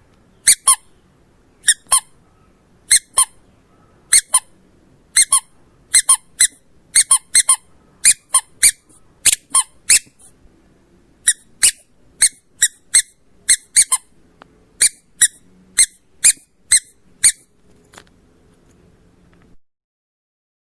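Squeaky dog toy squeezed over and over, giving short, high-pitched squeaks mostly in quick pairs about once a second. The squeaking stops about three seconds before the end.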